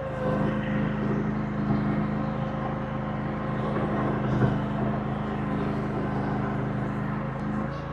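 Engine of a Chinese mini skid steer running steadily under working load as it moves dirt, getting a little louder just after the start.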